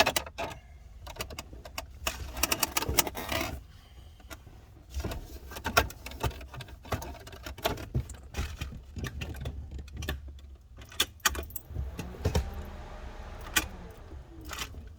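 Irregular clicks, rattles and scraping of plastic center-console trim in a Jeep Cherokee XJ being pried up and handled, with a longer scrape about two to three seconds in and a drawn-out creaking scrape near the end.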